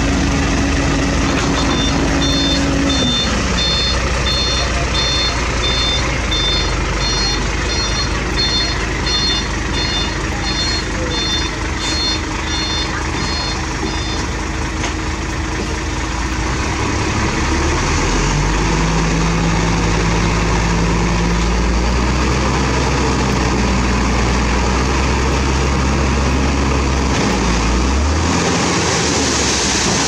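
Heavy diesel paving machinery and trucks running, with a reversing alarm beeping about once a second for the first twelve seconds or so. One engine winds down a couple of seconds in, and a deeper engine hum comes up past the halfway point.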